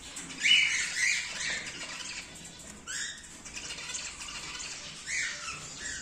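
Cockatiels squawking: a run of several harsh calls about half a second in, then single calls around three and five seconds in.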